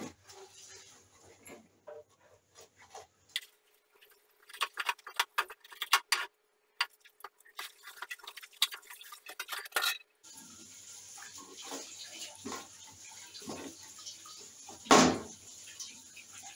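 Knife cutting boiled chicken gizzards on a wooden cutting board: irregular sharp taps and clicks of the blade against the board. About two-thirds through a steady hiss comes in, with one louder knock near the end.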